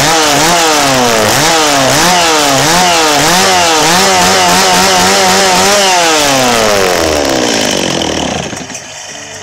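Two-stroke gas chainsaw running, its engine speed swinging up and down about twice a second, then the revs sliding down to idle near the end.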